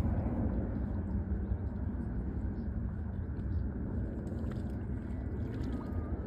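Steady low rumble of wind buffeting the microphone, with a few faint ticks above it.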